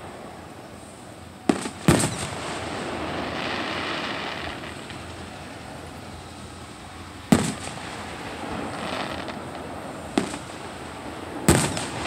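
Aerial firework shells bursting at a distance: five sharp booms, a close pair about two seconds in, one near the middle and two more near the end, each trailing off in a short rumble.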